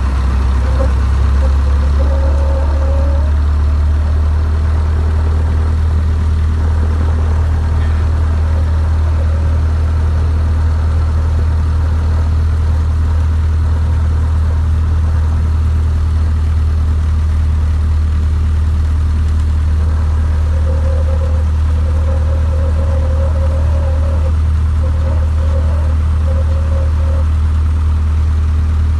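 A Cessna's single piston engine and propeller run steadily at taxiing power, heard from inside the cabin as a constant low drone.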